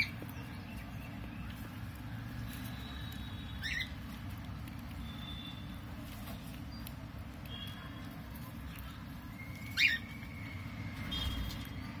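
Rosy-faced lovebirds chirping in the nest: two sharp, short rising chirps, about 4 and 10 seconds in, with fainter short high calls between them, over a steady low rumble.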